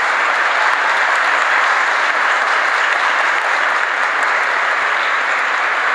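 A church congregation applauding: dense, steady clapping from many hands.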